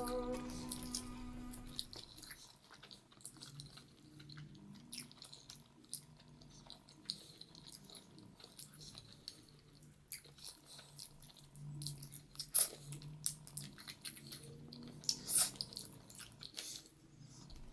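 Close-miked chewing and biting of food, with scattered wet clicks and smacks; the loudest bites come about two-thirds of the way through. A strummed guitar tune fades out in the first two seconds.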